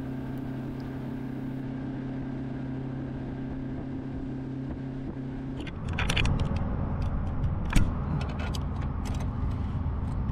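Outboard jet boat motor running at a steady drone. About six seconds in it turns into a rougher, noisier rumble with scattered clicks.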